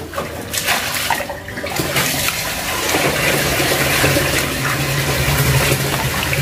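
Wet handling of fish in a plastic bowl, then a steady rush of running water from about two seconds in, with a low hum beneath it.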